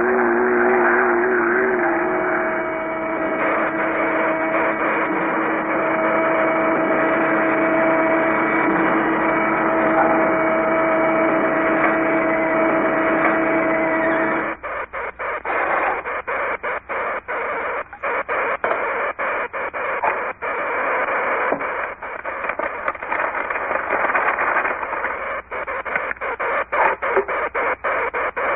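Old, narrow-band 1940s cartoon soundtrack of music and sound effects with no dialogue. For about fourteen seconds it holds long steady tones, wavering at first, then it turns into a choppy stop-start passage broken by many short gaps.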